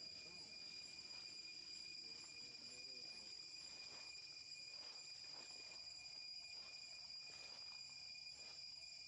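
Faint, steady chorus of insects in the forest, holding several high tones at once. Faint ticks or rustles come through in the second half.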